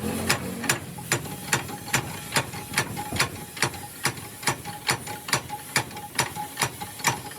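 Steady rhythmic mechanical clicking, about two to three sharp clicks a second, with a faint steady tone in the later part.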